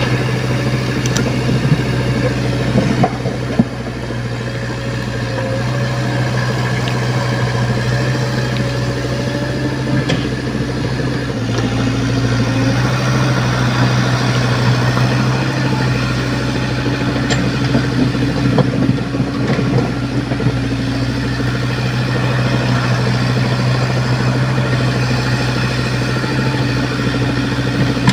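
Komatsu PC75UU mini excavator's diesel engine running steadily, with a few sharp metallic knocks in the first few seconds.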